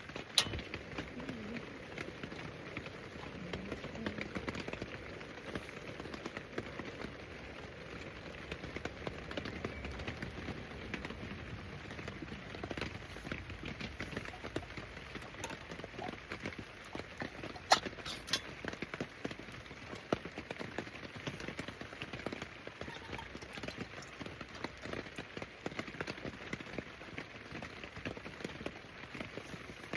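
Steady heavy rain pattering on a tarp roof overhead, full of small drip taps, with two sharp clicks, one just after the start and one a little past halfway.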